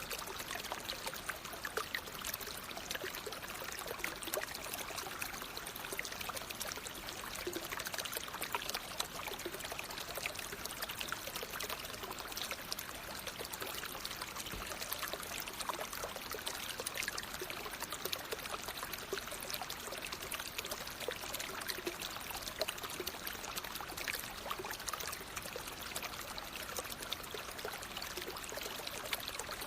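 Water flowing in a natural stream: a steady, even rush dense with small splashes and trickles.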